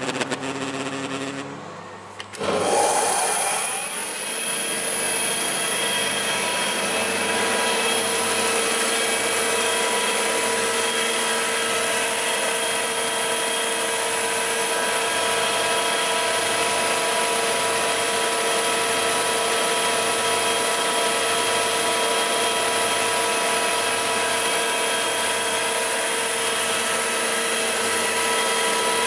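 Giben combination woodworking machine (planer-thicknesser) running steadily, a constant hum with a whine of several fixed tones over a rushing noise. The sound dips about two seconds in and comes back at once, then holds steady.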